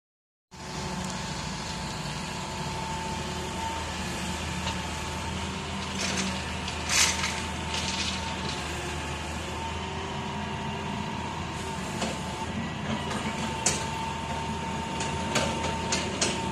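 Hitachi crawler excavator's diesel engine running steadily under working load, with a constant high whine. Gravel and stones clatter and knock as the bucket digs and dumps loads into a dump truck bed, the loudest crash about seven seconds in and several more near the end.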